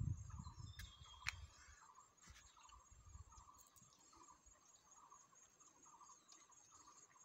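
Faint chirping of insects such as crickets: a high steady trill with a lower chirp that repeats throughout. A light click sounds just over a second in.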